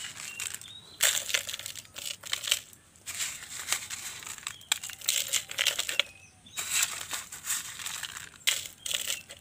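Gravel poured by hand into a plastic pot onto broken brick and roof-tile pieces, rattling and crunching in three spells of a second or two each.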